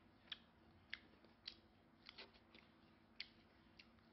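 Short, sharp wet clicks and smacks of a mouth chewing food, about seven spread unevenly over four seconds, over a faint low hum.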